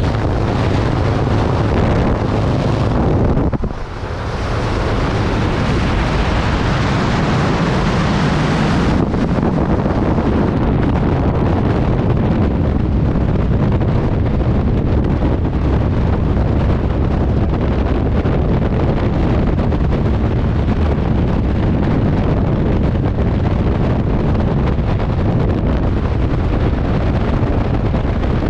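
Heavy wind rushing over the camera microphone, first at the open door of the jump plane and then in a tandem skydive's freefall. There is a short dip about four seconds in, then a steady rush of air.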